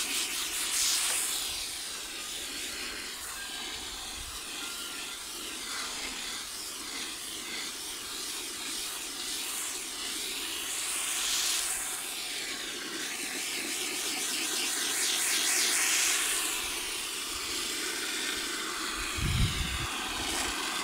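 Water running from a garden hose spray nozzle into a plastic bucket of wheat grain: a steady noisy spray that grows louder for a few seconds past the middle, as the grain is flooded for washing before malting. A short low thump near the end.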